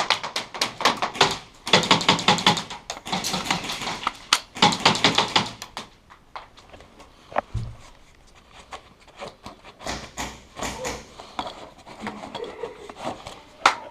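Airsoft guns firing in rapid bursts, a fast rattle of sharp clicks, for the first several seconds and again from about ten seconds in, with a single sharp knock in the lull between.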